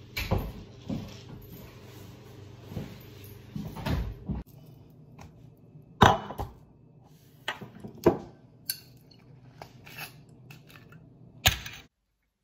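Soft footsteps over a steady low room hum, then a run of sharp knocks and clinks as a wine glass is handled; the loudest knocks come about halfway through and again shortly before the sound cuts out.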